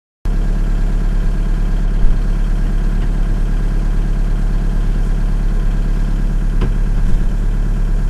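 Turbo-diesel (TDI) rally car engine idling steadily, heard from inside the stripped cabin, with a couple of brief knocks.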